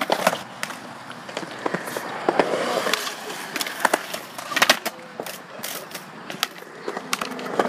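Skateboards rolling on concrete, the wheels giving a steady rumble, broken by sharp clacks of boards popping and landing, loudest in a quick cluster about four and a half seconds in.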